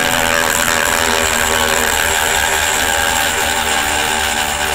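Dremel rotary tool running steadily, grinding away mold flash and a seam step on plastic model kit parts.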